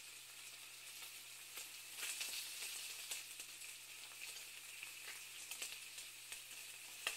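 Egg-and-flour-coated potato patties deep-frying in hot oil: a faint, steady crackling sizzle, a little louder about two seconds in.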